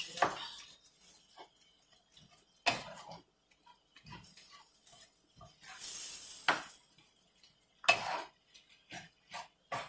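A wooden spatula scraping and knocking against a frying pan while breaking up ground turkey and sausage meat. There are several sharp knocks a couple of seconds apart, with brief scrapes between them.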